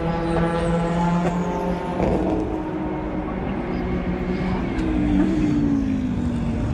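Race car engines running at speed on a circuit: a steady multi-tone engine note that falls in pitch about two seconds in, then another engine note sliding down in pitch near the end as a car goes past.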